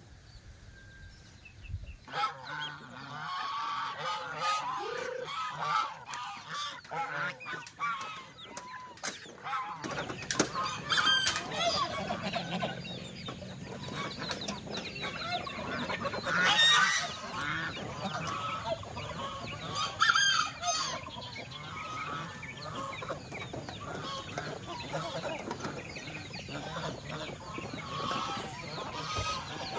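Mixed flock of farm ducks and chickens calling all at once, with a few louder calls standing out above the din. The calling starts about two seconds in.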